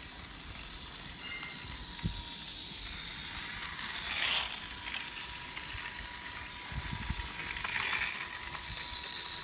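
Motorised toy Thomas engine's small battery motor whirring steadily as it runs along plastic track, with a few short knocks from the track pieces and blocks.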